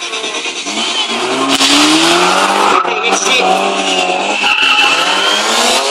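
Stunt motorcycle revving hard, its engine pitch rising about a second in, with the rear tyre squealing and skidding on the tarmac.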